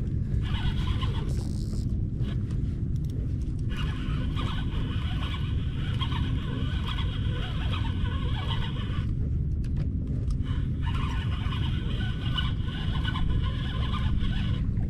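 Fishing reel being cranked to bring in a hooked fish on a trolling line, its whirring coming in spells with pauses between, over a steady low rumble.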